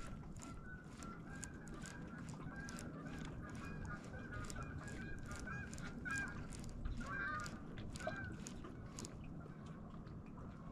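A flock of geese honking, many short overlapping calls continuing throughout, over a low steady rumble.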